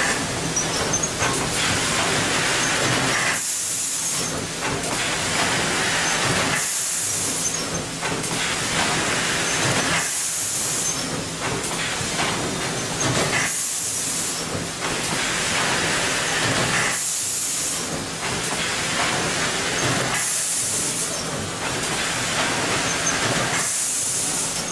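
Automatic granule packaging machine running with a steady mechanical hiss, and a short burst of high hiss recurring about every three and a half seconds as it cycles.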